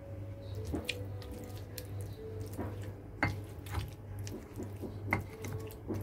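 Stone pestle crushing cooked chillies and shallots for sambal terasi in a stone mortar (ulekan and cobek): wet squishing with about six sharp knocks of stone on stone. A steady low hum runs underneath.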